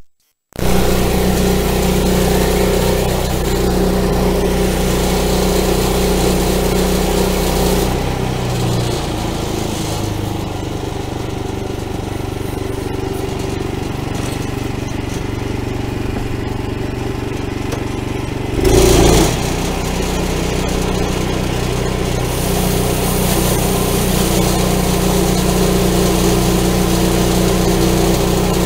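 Portable sawmill's engine running steadily under load as the mill saws a walnut log, the sound shifting as the cut goes on. A short, louder noise comes about two-thirds of the way through.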